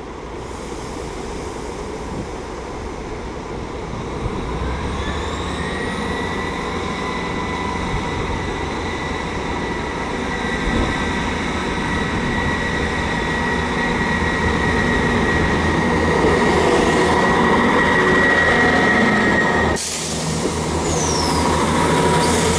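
Class 159 diesel multiple unit running into the station: the Cummins diesel engines and wheels on the rails grow steadily louder as it approaches, with a steady high squeal from about five seconds in. Near the end the train passes close by.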